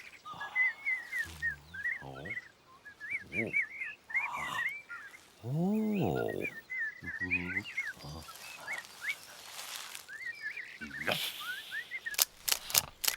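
Cartoon animal sounds: rapid high chirps run throughout, broken by several short low pitched calls, one of them rising and falling about six seconds in. A quick series of sharp clicks comes near the end.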